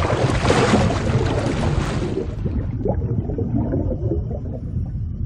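Water-splash and underwater bubbling sound effect: a loud rushing splash that fades out about two seconds in, leaving a deep bubbling rumble.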